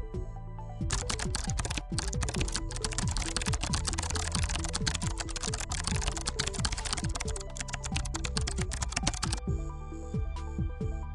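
Rapid computer keyboard typing over background music, starting about a second in and stopping near the end.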